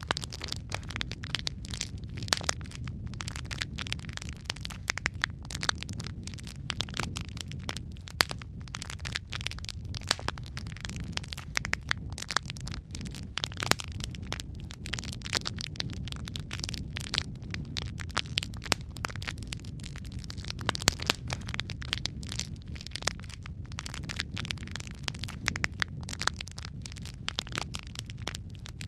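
Wood fire burning in a fireplace: logs crackling and popping in quick irregular snaps over a low steady rumble of the flames.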